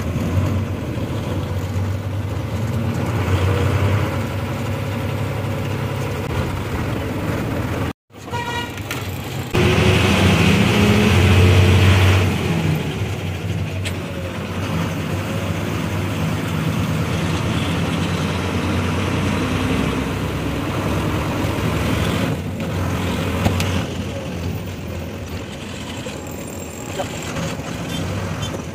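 Lorry engine running steadily with road noise, heard from inside the cab while driving. The sound cuts out briefly about eight seconds in, then is louder for a couple of seconds.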